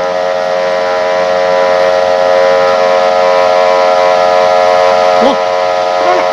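A portable thermal fogging machine running with a loud, steady droning buzz as it pours out thick disinfectant fog.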